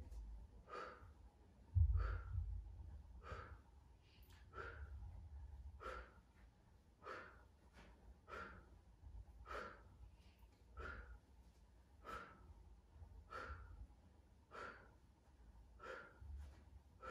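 A woman breathing out hard in a steady rhythm, about one breath every 1.2 seconds, as she works through repeated leg lifts. A dull low thump comes about two seconds in.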